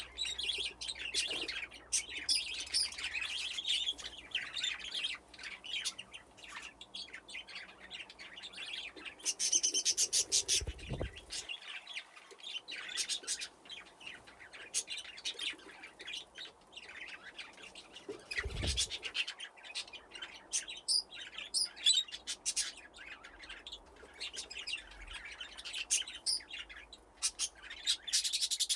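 A flock of budgerigars chirping and chattering, with many overlapping short calls and warbling trills.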